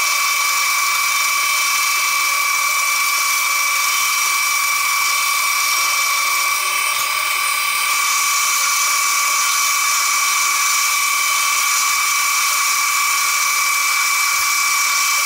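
Metal lathe running with its carbide-insert tool turning down a steel bar: a steady high whine with a hiss of cutting.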